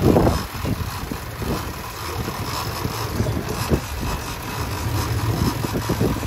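Twin Yamaha outboard motors running at idle, a steady low rumble under wind and sea noise, with a loud burst of noise right at the start.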